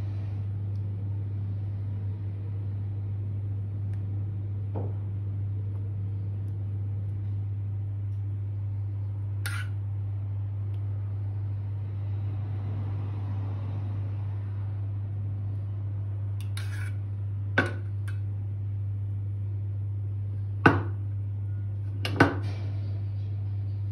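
Metal spoon spreading chocolate pudding over a cake and clinking sharply against the plate and bowl a few times, mostly in the last third, over a steady low hum.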